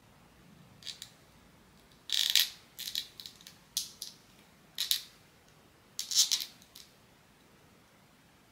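Small hard plastic pieces rattling and clicking as a PVC blind-box figure and its parts are handled. The sound comes in short clusters of clicks, loudest about two seconds in and again about six seconds in.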